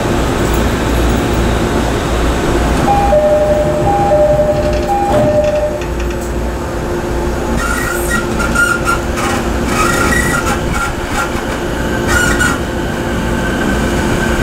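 Interior of a JR East E217-series electric train standing at a station, then starting to pull away. A two-note steady electronic tone sounds about three seconds in. From about eight seconds a steady high whine from the MT73 traction motors and their drive comes in and carries on as the train starts moving near the end.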